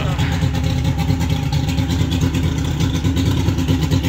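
An engine idling steadily, with a low, even hum.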